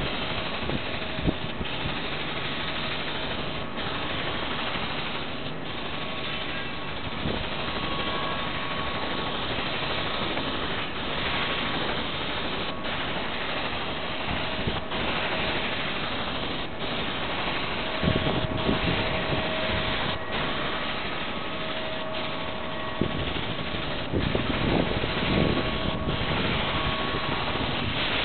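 Steady machine hum and hiss with a faint held whine, briefly dipping about every two seconds.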